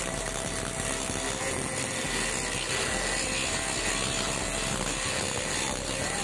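Bosch GWS 060 corded angle grinder with a grinding disc running against a steel angle bar, a steady grinding noise as the disc strips the top layer of the metal down to bare steel.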